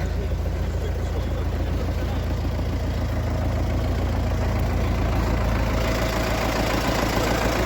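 A vehicle engine running steadily, growing somewhat louder and fuller over the second half.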